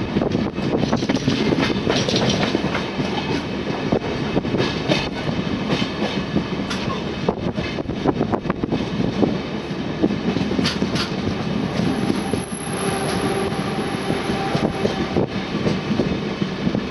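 Passenger coach wheels running over the rails, heard from an open doorway of the moving train: a steady rumble with a rapid clatter of rail joints, and a thin high wheel squeal from about twelve to fifteen seconds in.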